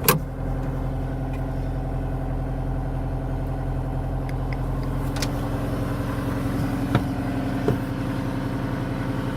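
Caterpillar 242D skid steer's diesel engine idling steadily, cold. A sharp knock right at the start, with a few faint clicks later.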